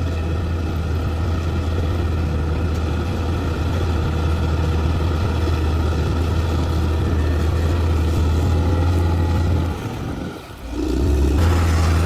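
Heavy construction machine's diesel engine running steadily with a deep, low hum. The sound drops away briefly about ten seconds in, then picks up again.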